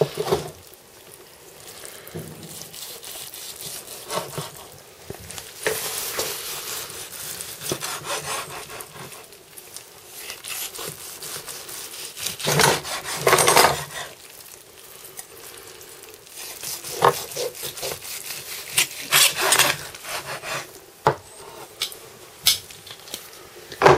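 Large kitchen knife sawing back and forth through a crusted, stuffed roast chicken and scraping on a plastic chopping board, in irregular strokes. A few sharp knocks come near the end.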